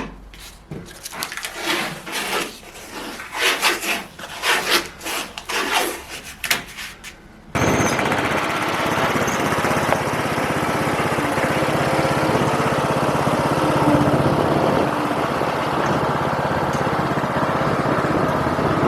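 Irregular scraping and knocking of metal and wood parts being handled. About seven and a half seconds in, a steady, loud engine-and-rumble noise starts abruptly and runs on: a small garden tractor running as it tows a homemade sawmill on wheels.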